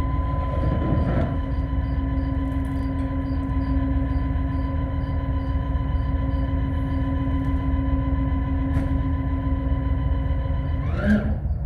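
Lifeboat davit winch running with a steady hum over a low rumble as the boat is lowered; near the end the hum stops with a short rising whine and a clunk.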